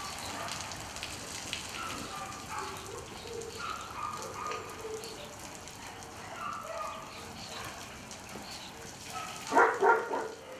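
Water from a garden hose spraying onto corrugated kennel roofs and wet paving, a steady rain-like patter. Near the end a dog barks loudly three times in quick succession.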